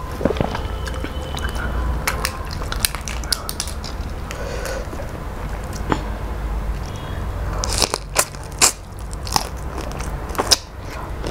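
Close-miked eating sounds from a person chewing shrimp pilau and fried fish eaten by hand: short, sharp, wet mouth clicks and crunches, coming most thickly and loudly in the last few seconds.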